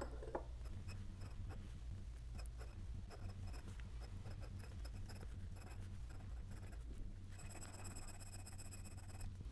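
Glass dip pen nib scratching faintly across paper as a word is written in short strokes. Near the end comes a longer steady stroke of about two seconds with a faint high squeak, as the nib drags out a broad ink swatch.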